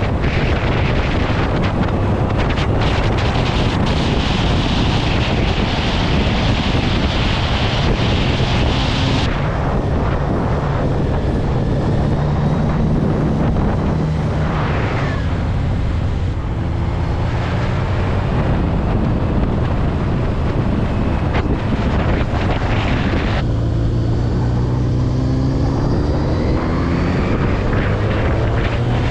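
Kawasaki Z900RS's 948 cc inline-four engine, with its 4-into-1 exhaust, running at track speed under heavy wind noise on the microphone. The wind eases about a third of the way in. Over the last few seconds the engine note rises steadily as the bike accelerates.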